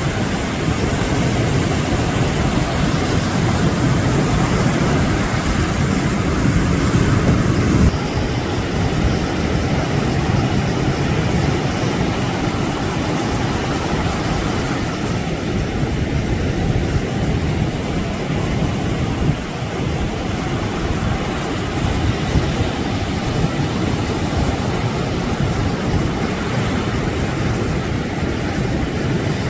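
Steady rushing, rumbling noise of sea surf and wind on the microphone at the shoreline; the hiss eases a little about a quarter of the way in.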